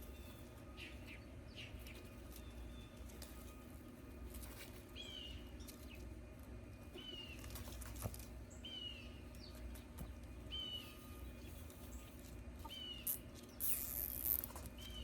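A bird calling again and again, a short note that drops in pitch, about every two seconds, over faint outdoor background. A few light clicks and a brief rasp near the end.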